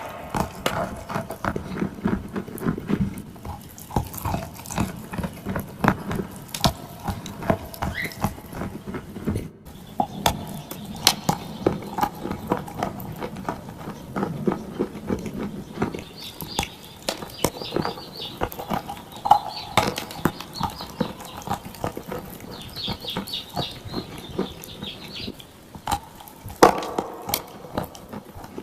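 Dry and wet clay crunching and crumbling in quick, irregular crackles, with moist squishing from the wet clay and paste.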